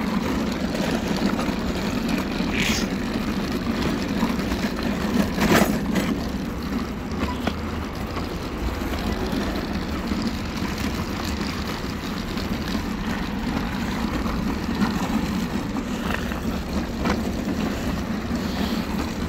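Steady rolling rumble of a city street: passing traffic and a loaded shopping trolley pushed over the pavement, with a sharp knock about five and a half seconds in.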